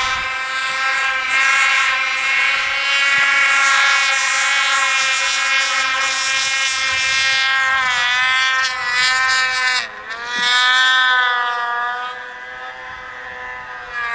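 Two-stroke snowmobile engine running at a high, wavering pitch as the throttle is worked; the pitch dips sharply about ten seconds in, then climbs back.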